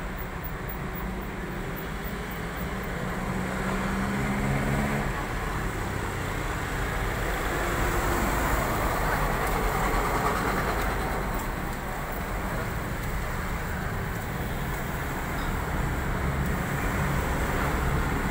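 Steady street traffic noise, with a vehicle engine humming for the first few seconds.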